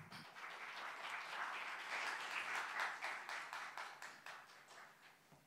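Audience applauding, swelling in the first second and fading away near the end.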